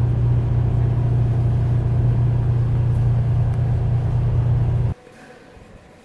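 Steady low drone of a passenger train heard from inside the carriage. It cuts off suddenly near the end, leaving a much quieter room.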